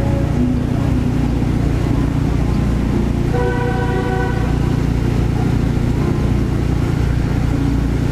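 Steady low rumble of city ambience, with a brief faint pitched sound about three and a half seconds in.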